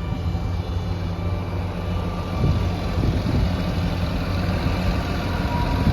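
Caterpillar D6N bulldozer's diesel engine running steadily, growing a little louder about two and a half seconds in.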